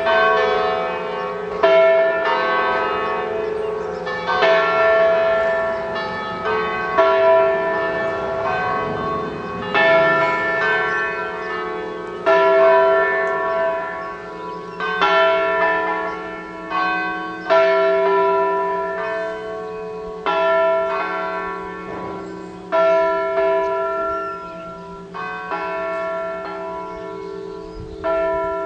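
Five-bell Ambrosian church peal tuned E, F sharp, G sharp, A and B, cast by the Capanni foundry apart from the A by Pruneri of Grosio, ringing continuously: strokes overlap and hum away, with a loud stroke about every two and a half seconds.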